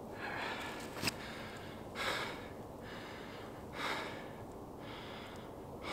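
A man breathing heavily: three loud breaths about two seconds apart, with a short click about a second in.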